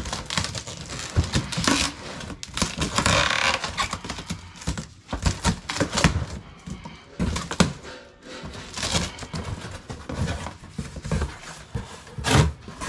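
Hands rummaging through an opened cardboard moving box of household odds and ends: irregular knocks, scrapes and paper rustling.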